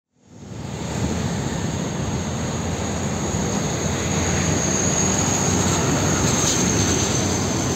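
Diesel engines of loaded dump trucks running as they drive past, with tyre and traffic noise and a thin steady high whine above them. The sound fades in over the first second.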